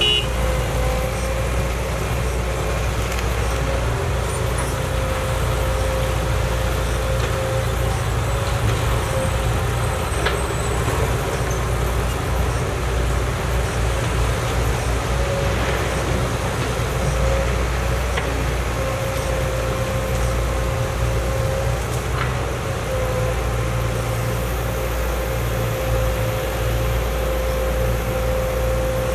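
Caterpillar 312C excavator's diesel engine running steadily under working load, a low drone with a steady whine above it, while the machine swings and dumps soil into a dump truck.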